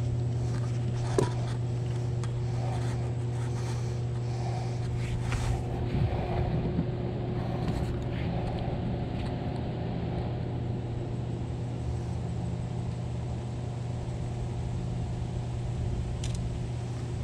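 Steady low motor hum with evenly spaced overtones, holding one pitch throughout. Handling noises over it: a sharp click about a second in and rustling and knocks around five to seven seconds.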